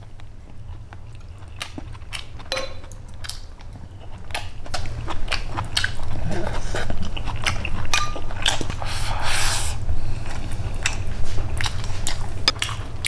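Close-up chewing and biting of rice and stir-fried pork kidney, with sharp clicks of chopsticks and a spoon against a porcelain bowl, louder from about four seconds in. A steady low hum runs underneath.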